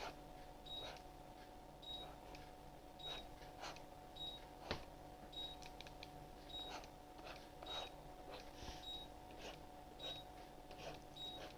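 A faint, short, high-pitched electronic beep repeats about every second, over a low steady hum. Scattered light clicks come at irregular intervals.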